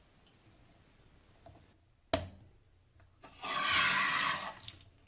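A sharp click about two seconds in as the plastic index cap is snapped into the top of the acrylic faucet handle, then a hissing rush lasting just over a second as the hand works the reassembled handle.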